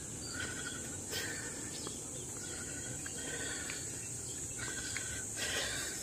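A steady, high-pitched drone of insects, with short chirping calls repeating about once a second over it.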